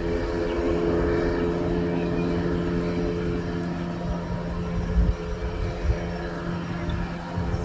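Speedboat engine running steadily as the boat speeds away across the water, its higher tones fading about halfway through. A couple of low thumps come in the second half.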